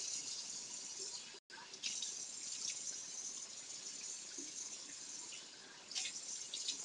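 Bathroom tap running into a sink in a steady hiss while hands splash water onto a face, with a few sharper splashes near the end. The sound cuts out for an instant about one and a half seconds in.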